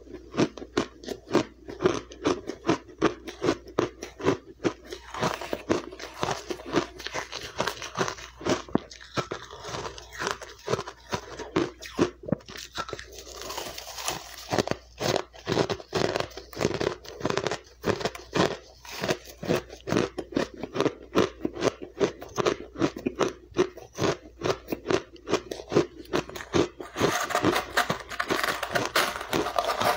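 Close-miked crunching of crushed, refrozen ice being bitten and chewed: crisp crunches several times a second. Near the end there is a longer rustling scrape through the ice.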